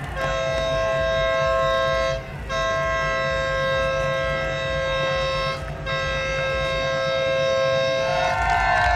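A two-tone horn sounded in three long blasts, with short breaks about two and five and a half seconds in.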